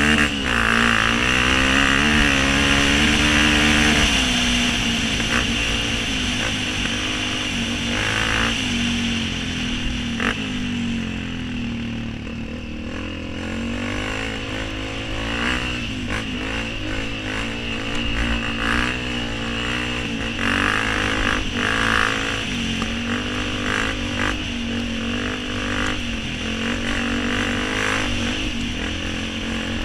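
Honda CRF230F dirt bike's single-cylinder four-stroke engine running under way, its revs rising and falling as the rider works the throttle, heard close from a helmet camera; it is loudest and revs hardest in the first few seconds. Now and then a sharp knock comes from the bike over the rough track.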